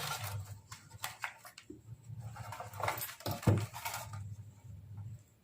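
Several sharp clicks and knocks from parts being handled on a workbench, with a low hum coming and going underneath; it goes quiet near the end.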